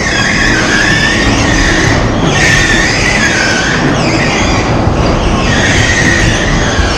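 Electric bumper cars driving around the rink: a steady rolling rumble with a high whine that dips and rises as they move.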